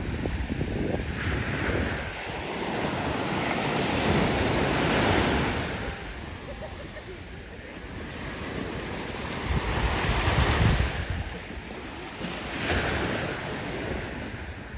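Small Mediterranean waves breaking and washing up on a sandy shore, the surf swelling and fading twice. Wind buffets the microphone in low rumbling gusts.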